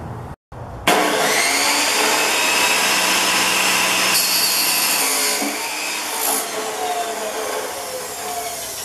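Chop saw cutting through a length of blue rectangular steel tubing (PTR). The saw starts suddenly about a second in and runs steadily through the cut, with high ringing tones, a little quieter after about five seconds.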